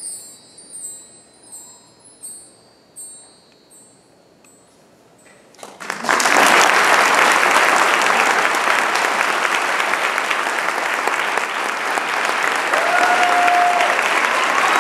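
A few final strokes of high metal chimes ring out and die away as a concert band piece ends. About six seconds in, audience applause breaks out and carries on loudly.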